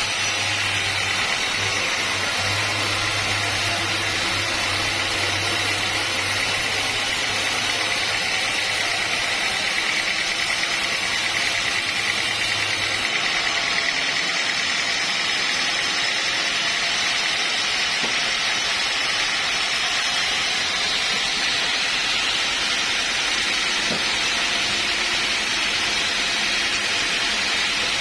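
Sawmill machinery running with a steady, hissing mechanical noise. A low hum underneath stops about halfway through while the main noise carries on.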